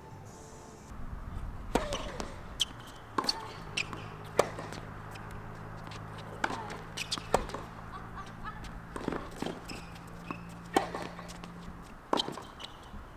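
Tennis ball on a hard court: a dozen or so sharp, irregularly spaced knocks of the ball bouncing and being struck by rackets, over a steady low hum.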